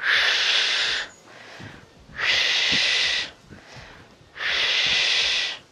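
A woman blowing out hard through pursed lips: three long, hissing exhalations about two seconds apart, each lasting about a second, with quieter in-breaths between. This is paced breathing during a squat exercise.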